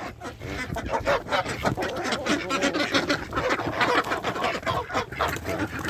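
A flock of domestic geese honking, with other poultry calling in a dense, overlapping jumble.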